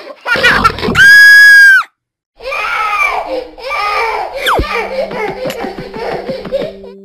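Cartoon little girl's voice giggling, then a shrill, very loud scream held for about a second, followed after a short break by frightened wailing cries. A quick falling whistle comes in the middle, then a fast pattering run of cartoon footsteps.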